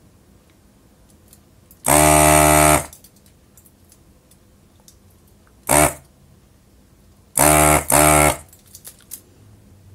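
Handheld electric desoldering gun's vacuum pump buzzing in four bursts while sucking solder from a small circuit board's capacitor joints: one long burst of about a second, a short one, then two in quick succession.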